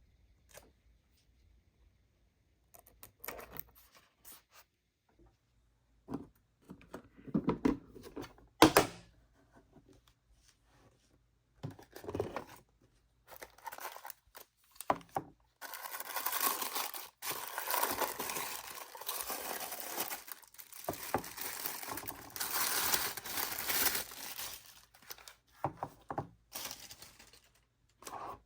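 Toy packaging being opened by hand: scattered clicks and knocks of handling, then, from about halfway in, some ten seconds of continuous crinkling and tearing of wrapping.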